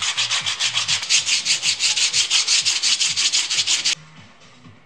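Hand sanding of a small walnut piece with sandpaper: quick back-and-forth scraping strokes, several a second. The sanding cuts off abruptly about four seconds in, leaving faint background music.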